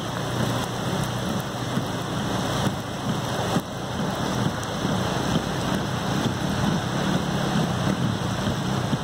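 Heavy rain falling together with fast floodwater rushing in a torrent, a steady, unbroken noise.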